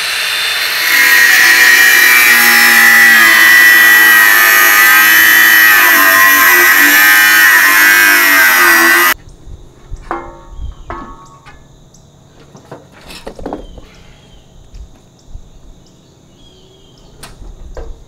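Cordless power tool cutting down the steel shaft of a condenser fan motor, running loud and steady with a whine that wavers in pitch for about nine seconds, then stopping suddenly. Scattered light knocks and clicks of parts being handled follow.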